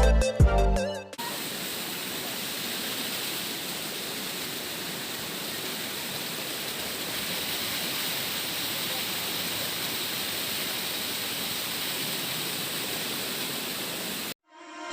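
Waterfall rushing, a steady, even roar of falling water. It takes over after a music sting cuts off about a second in and stops abruptly just before the end.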